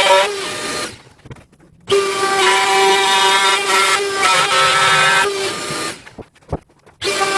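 DeWalt trim router running with a steady high whine. It stops twice, leaving short quiet gaps, and comes back on sharply each time; there is a single knock in the second gap.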